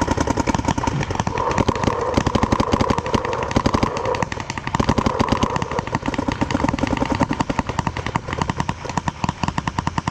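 Paintball markers firing in rapid, near-continuous streams, many shots a second, from several guns at once.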